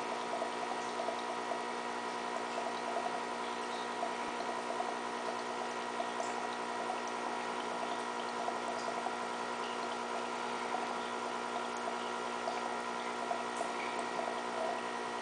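Aquarium pump running: water bubbling and trickling in small irregular pops over a steady hum.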